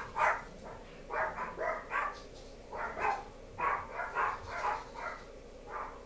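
A woman making a series of short, high meow-like calls, imitating a cat while cooing at a kitten.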